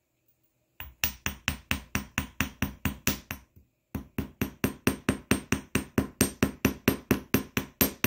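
Polished ball peen hammer tapping a 16-gauge copper wire hook on a bench block to texture it: quick, light, even strikes about five a second. The tapping starts about a second in, breaks off briefly near the middle, then resumes.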